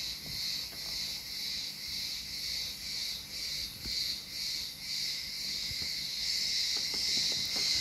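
High-pitched insects chirping steadily in the background, pulsing about twice a second.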